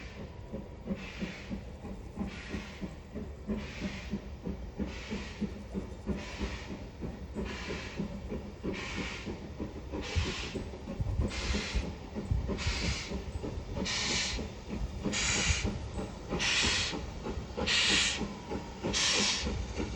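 Steam locomotive working a train, with slow, evenly spaced exhaust chuffs about one every 1.3 seconds over a low rumble, growing steadily louder.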